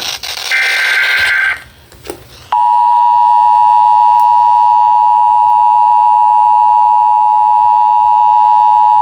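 Emergency Alert System broadcast: a short burst of the warbling digital SAME header tones ends in the first second and a half. About two and a half seconds in, the steady two-tone EAS attention signal starts, a loud unbroken tone that holds without change.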